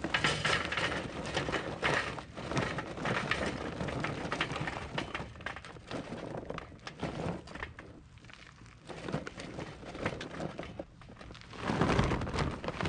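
Kingsford charcoal briquettes poured from a paper bag into a steel chimney starter, clattering in a dense rush of small knocks. The flow thins out past the middle and picks up again near the end.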